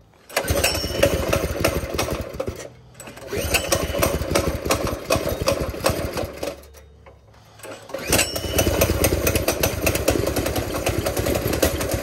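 Cold start of the Baja Warrior minibike's small single-cylinder engine, its governor held open with a zip tie: it fires and runs a couple of seconds, dies, fires again for about three seconds and dies, then catches about eight seconds in and keeps running.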